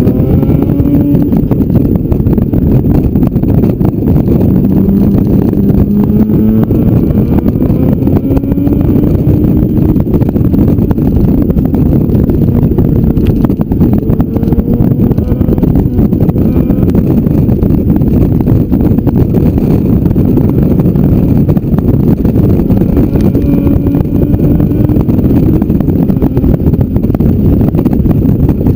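Motorcycle under way at speed, heard from a camera on the bike: heavy wind rush on the microphone over the engine, whose note rises a few times as it accelerates.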